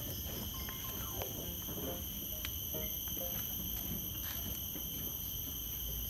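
A steady, high-pitched insect chorus of several continuous tones, with scattered light footsteps knocking on metal stair treads.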